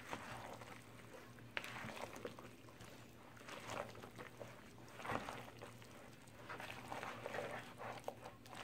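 Silicone spatula stirring a thick, creamy chicken and cream-cheese mixture in a plastic bowl: faint, irregular wet squelching and scraping strokes, with a sharper knock against the bowl now and then.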